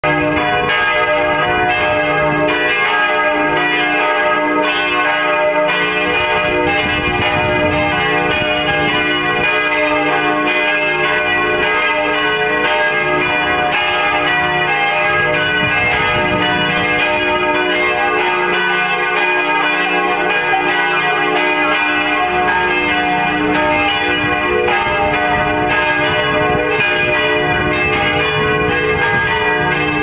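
Church tower bells swinging and ringing together, a small peal of several bells rung to call to Sunday Mass. Their strokes overlap in a continuous, steady clangour with no pause.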